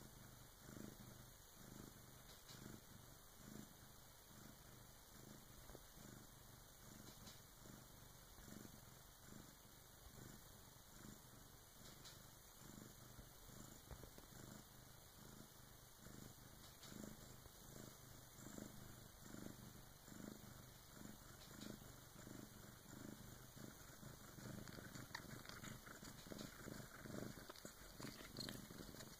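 Bengal cat purring softly in a steady rhythm, a little louder over the last few seconds.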